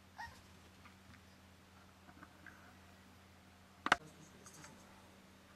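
Quiet room with a steady low hum and a few faint small clicks, broken by one sharp knock a little under four seconds in.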